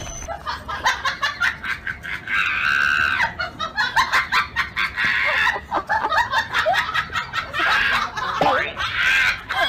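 A person laughing in quick, choppy bursts.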